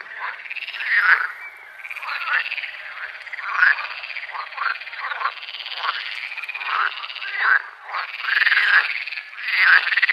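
A chorus of frogs croaking, many raspy calls overlapping and repeating about once a second.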